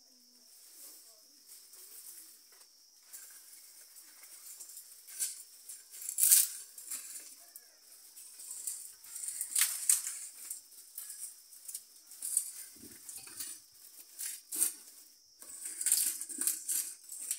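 Fresh green leaves rustling and crackling in irregular bursts as they are handled and pressed down over a pot of peeled sweet potatoes. The loudest crackles come about six, ten and sixteen seconds in, over a steady high hiss.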